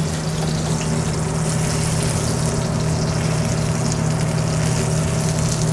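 T-bone steak searing in smoking-hot oil in a sauté pan, a steady sizzle, over a constant low mechanical hum.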